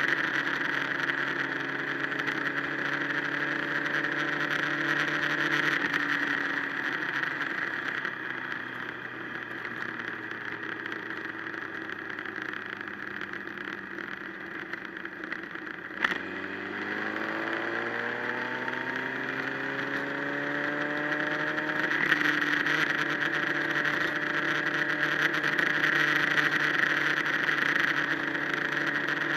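Motorcycle engine running on the road under a steady rushing noise. The engine note drops and stays low for a while, then a sharp click comes just past the middle. After the click the engine pitch climbs again as the bike accelerates, then settles to a steady cruise.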